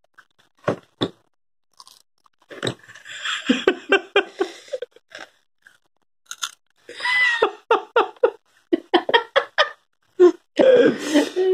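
A toddler biting and chewing a slice of bitter gourd (karela). The chewing comes in short spells with pauses, mixed with small sounds from the child's voice.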